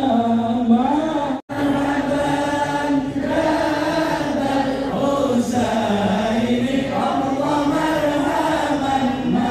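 Islamic devotional chanting: long held notes that glide slowly up and down in pitch, cutting out sharply for a moment about one and a half seconds in.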